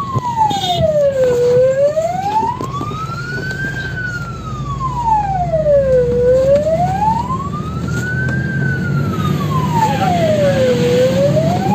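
Fire engine's wail siren, its pitch rising and falling slowly, about one full sweep every four to five seconds, heard from inside the cab. A steady low rumble of the truck's engine runs underneath.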